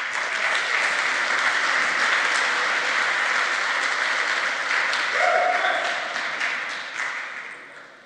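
Audience applauding steadily, tapering off over the last second.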